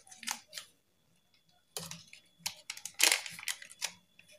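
Scattered light clicks and taps from ingredient containers and utensils being handled at a plastic mixing bowl, with a louder one about three seconds in and a short quiet gap early on.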